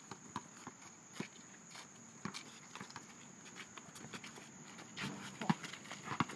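Basketball bouncing and sneaker footsteps on an asphalt court: irregular short knocks, busier about five seconds in.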